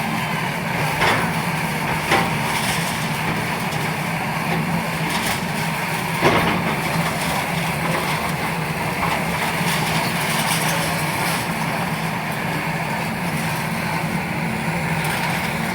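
A heavy engine running steadily, with a few sharp knocks about one, two and six seconds in.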